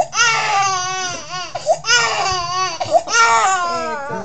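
Baby crying hard: about three long, high-pitched wails, each broken by a short sharp gasping in-breath.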